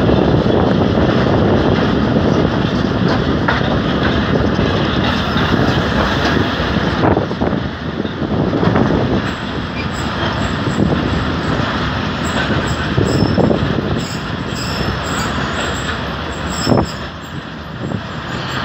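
Jaffer Express passenger train running on the rails, heard from the side of a coach: a steady rumble of wheels on track mixed with rushing air, slowly getting quieter as the train slows on its approach to the station. A single sharp clack sounds near the end.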